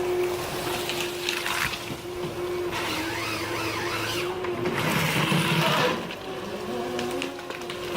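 Ponsse Ergo eight-wheeled forest harvester running, its engine and hydraulics giving a steady hum. Bursts of louder, rougher noise come about one and a half, three and five seconds in, the last the loudest.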